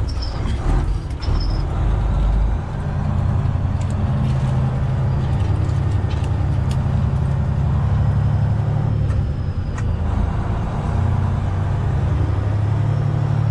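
Freightliner Classic XL semi-truck's diesel engine running at low speed as the truck rolls slowly through a turn, heard from inside the cab as a steady low drone whose pitch shifts slightly.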